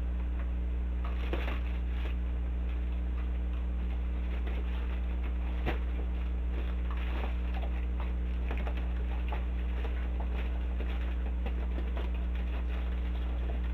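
Steady low electrical hum, with light scattered rustling, crinkling and clicking of a paper lantern and ribbon being handled and tied, and one sharper click a little past the middle.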